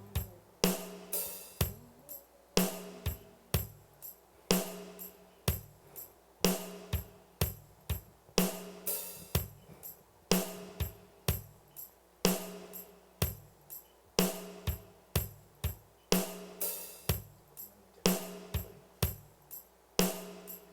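Worship band music without singing: a steady drum-kit beat with snare, cymbals and tambourine, about two strikes a second, over a low bass line.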